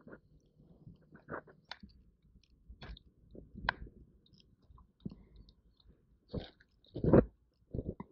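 Close handling noise of hands rigging fishing tackle on a paddle board: scattered small clicks, taps and rustles of fishing line and a swim bait lure, with a few louder knocks against the board near the end.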